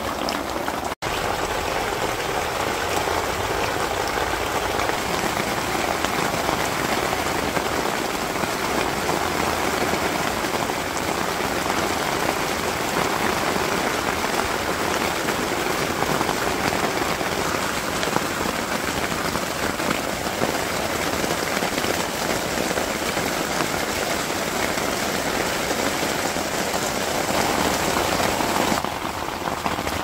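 Heavy rain falling steadily, with a momentary break about a second in.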